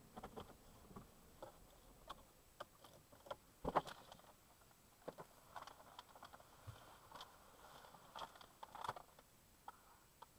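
Faint clicks, knocks and clothing rustles inside a parked car as the driver unbuckles his seat belt and climbs out through the driver's door. The loudest knock comes about four seconds in.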